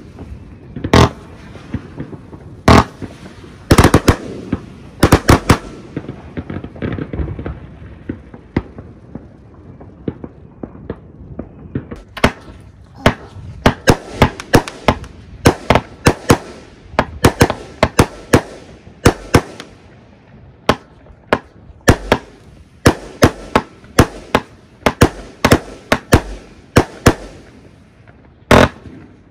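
Fireworks going off: a long series of sharp bangs, about one or two a second, with a stretch of crackling a few seconds in.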